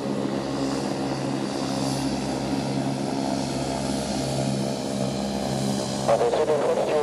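Propeller aircraft engine running steadily with an even hum. Near the end a brief, louder warbling sound cuts in for about a second.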